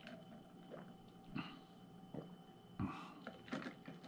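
Faint mouth sounds of a man drinking through a straw: a few soft sips, gulps and small clicks, the clearest about three seconds in, over a faint steady room hum.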